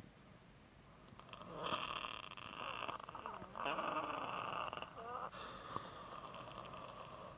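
Rattling breath noises from lower airways filled with fluid after a chest cold, not made with the voice. Two loud breaths, about a second and a half in and again near the middle, the second with tones that slide up and down, then fainter breathing.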